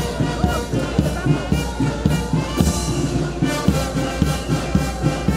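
Brass band playing a march: brass holding notes over a steady drum beat about two a second.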